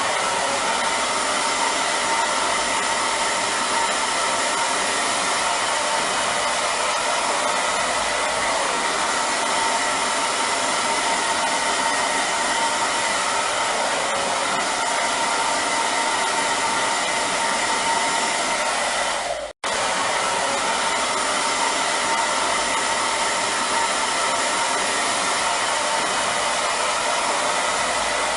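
Hair dryer running steadily: an even rush of blowing air with a faint steady whine. About twenty seconds in, the sound drops out for a split second and resumes at once.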